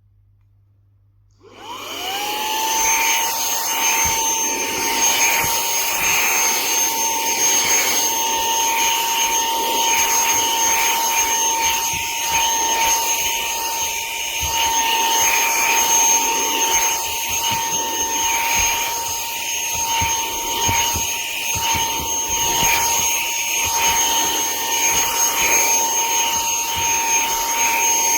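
Cordless handheld vacuum's brushless motor spinning up about a second and a half in, then running steadily with a high whine over the rush of air. Right at the end its pitch starts to rise.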